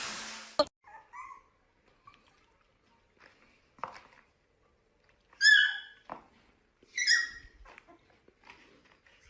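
A puppy giving short, high-pitched whimpers and yelps, two of them louder about five and seven seconds in. Before them, a steady hiss fades and cuts off with a click in the first second.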